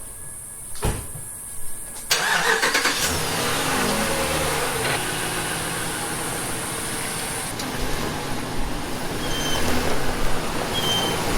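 A car engine starting about two seconds in, after a couple of short knocks, then running steadily at idle.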